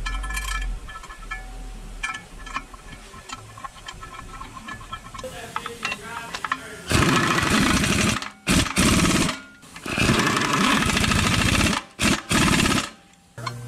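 A power wrench on a long extension runs in several loud, rapid hammering bursts with short pauses, starting about 7 s in, driving in the torque converter bolts.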